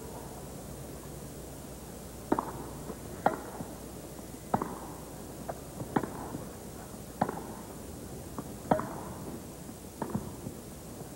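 Tennis rally on a grass court: rackets strike the ball about seven times, roughly a second and a half apart, with fainter knocks between the hits.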